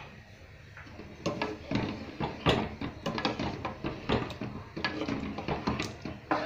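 Wooden spoon stirring a watery potato and spinach curry in a metal pan, knocking and scraping against the pan in quick, irregular strokes that start about a second in.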